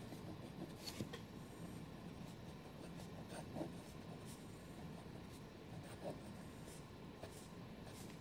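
Fine nib of a Namiki Nippon Art fountain pen scratching faintly across Rhodia paper while writing in cursive, with a few sharper ticks as strokes begin and end.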